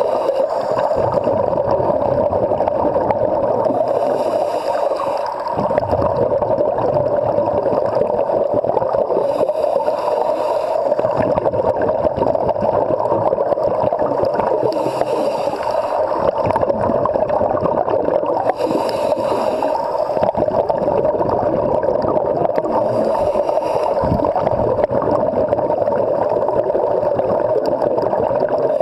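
Underwater recording on a scuba dive: a steady muffled rush, with a burst of exhaled bubbles gurgling from the diver's regulator about every five seconds.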